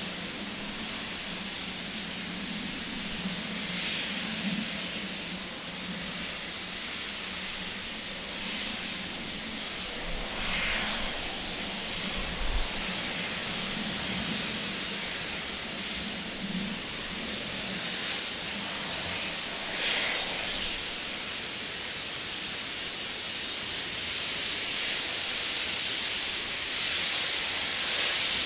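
Steam locomotive working hard uphill with a passenger train, drawing closer: a steady hiss of steam with soft exhaust beats, the hiss growing louder over the last few seconds as it nears.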